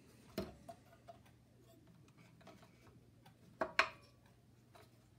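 Scattered clicks and knocks of hands working a rubber drive belt onto a small air compressor's pulley, metal and rubber parts knocking as they are handled. One sharp knock comes about half a second in and a louder double knock near four seconds in, over a faint steady low hum.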